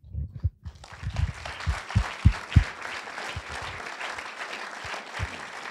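Audience applauding, starting about a second in and going on steadily. A few dull thumps in the first three seconds come from a handheld microphone being handled as it changes hands.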